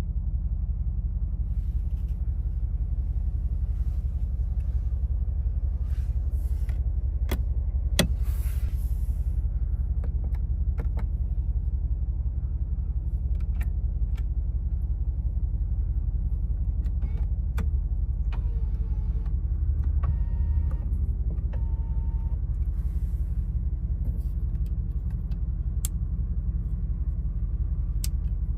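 Mercedes-AMG G63's 4.0-litre twin-turbo V8 idling with a steady low rumble. Scattered clicks and knocks sound over it, and a short run of electronic tones comes about twenty seconds in.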